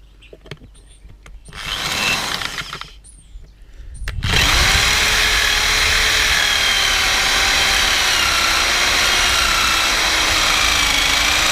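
Electric drill boring out a stripped bolt in an engine block. A short burst comes about two seconds in, then from about four seconds in the drill runs steadily at full speed, its motor whine wavering slightly in pitch.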